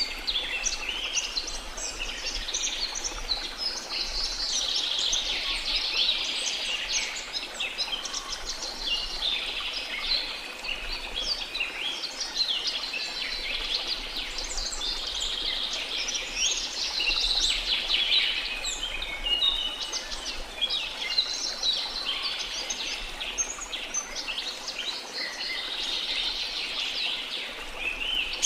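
Rainforest ambience: a dense chorus of many birds chirping and calling, overlapping continuously, over a steady hiss of flowing river water.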